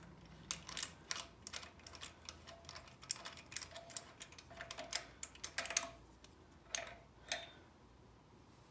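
Light, irregular metallic clicks and taps, some with a short ring, as the threaded balancer install tool is unscrewed by hand from the crankshaft snout; they stop about a second before the end.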